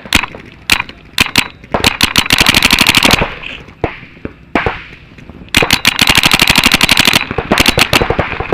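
Paintball markers firing: a few single shots, then two long rapid strings of shots a couple of seconds apart, and a few more shots near the end.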